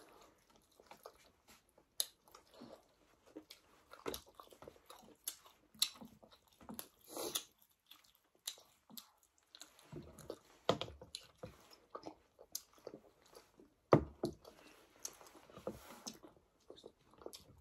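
People chewing and biting into chapati and curry close to the microphone, with scattered sharp clicks of spoons against plates.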